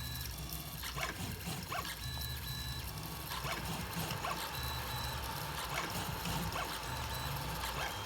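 3D printer at work: stepper motors whining in short pitched tones that start and stop as the print head moves, over a steady hum, with light clicks. About three seconds in, a new steady tone takes over.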